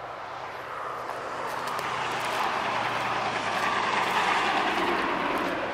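A vehicle passing on the highway: tyre and engine noise swells to a peak about four seconds in, then fades.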